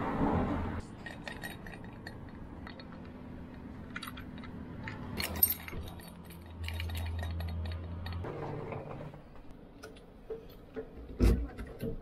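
Small metal clicks and clinks from a combination key lockbox being opened and a key taken out, with keys jangling. There is a sharp click near the end as the key goes into the lock of an entrance intercom panel. A low steady hum runs for a couple of seconds in the middle.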